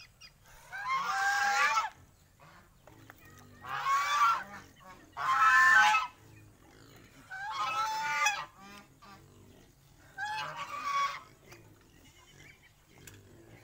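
Domestic goose honking: five drawn-out honks, each about a second long and spaced a second or two apart, the third the loudest.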